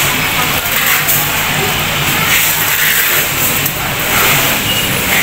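Busy supermarket ambience: a steady noisy hiss with indistinct voices in the background.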